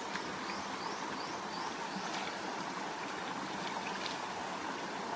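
River water flowing steadily, with a few faint short rising chirps in the first two seconds.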